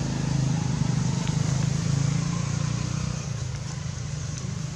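Steady low hum of a motor-vehicle engine, fading after about three seconds.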